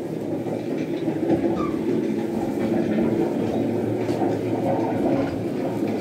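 A steady low rumbling, noisy ambience with no clear single event: the sound-effects track played through a walk-through Blitz wartime exhibit.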